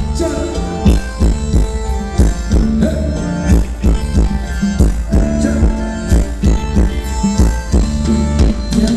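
Thai ramwong dance music played loud, a steady fast drum beat under sustained melody tones.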